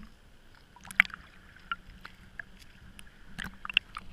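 Small splashes of river water lapping against a waterproof action-camera housing held at the surface, with a few sharp plips and clicks scattered through.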